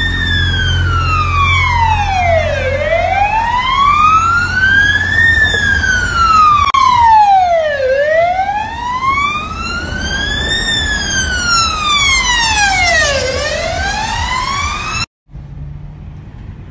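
Police vehicle siren on the wail setting, its pitch rising and falling slowly about every five seconds, three times over, above a low rumble. It cuts off suddenly near the end.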